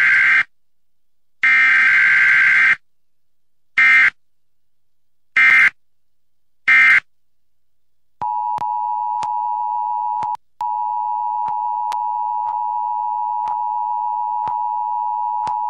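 Emergency Alert System tornado warning broadcast: digital data squawks, two long and then three short, and about eight seconds in the steady two-tone attention signal begins, with one short break.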